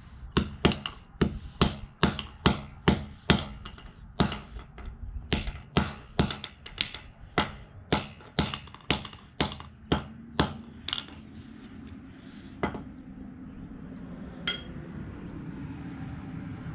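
Claw hammer repeatedly striking a small Bluetooth speaker against a concrete floor: about two dozen sharp blows at two to three a second, stopping about eleven seconds in, followed by two single knocks.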